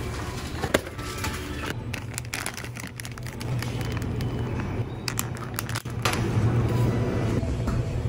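Supermarket background noise with a steady low hum, and plastic food packaging crinkling as it is handled, in spells about two to three and five to six seconds in.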